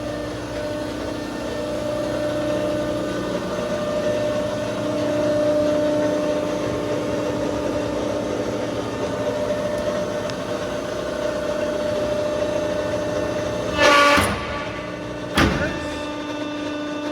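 Balemaster horizontal baler running, its hydraulic power unit giving a steady hum. Near the end come two short, loud clunks about a second and a half apart.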